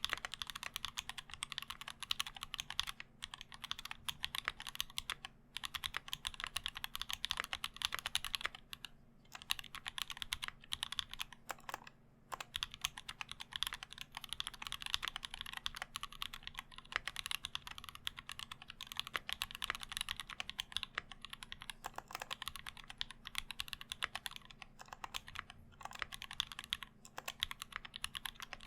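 Continuous fast typing on a custom KBD Blade60 mechanical keyboard with lubed and filmed C3 Tangerine linear switches, a brass plate, tape mod and ABS keycaps, giving a clacky keystroke sound. A faint steady low hum runs underneath.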